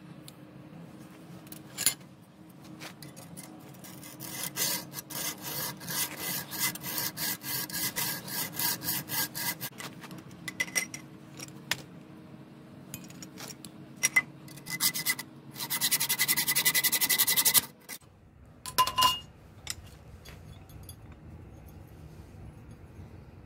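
Hacksaw cutting steel held in a bench vise: rasping back-and-forth strokes, about two or three a second, then a stretch of faster continuous sawing near the end, followed by a brief metallic clink.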